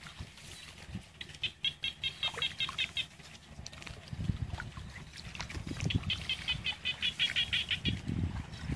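An animal calling outdoors in a rapid series of high chirps, about six a second, in two bouts of roughly two seconds each. Irregular low rustling or splashing grows louder in the second half.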